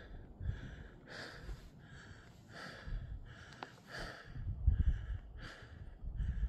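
A person breathing hard and fast close to the microphone, winded from climbing to a 13,000-foot summit. Short rasping breaths come in a steady run, one or two a second. A low rumble on the microphone joins in a little past the middle.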